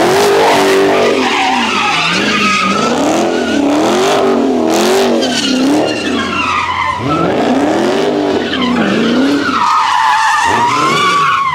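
A Dodge V8 muscle car drifting, its engine revving up and down again and again while the tyres squeal, the squeal loudest near the end.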